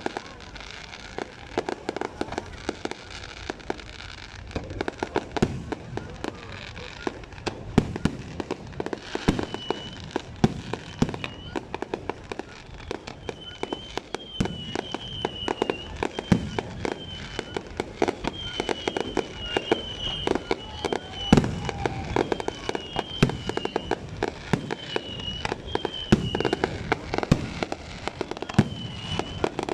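Aerial fireworks bursting in a dense, irregular string of bangs and pops. From about a third of the way in, a wavering high-pitched whistle recurs over the bangs.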